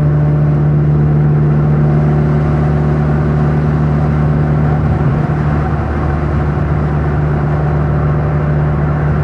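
Ford Mustang exhaust running steadily under way with its exhaust cutout valve closed: a steady, deep drone that is not overly quiet.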